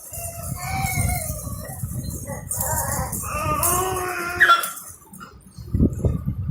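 Baby squealing and babbling in high, wavering tones, with a sharp squeal about four and a half seconds in, over low rubbing and handling noise.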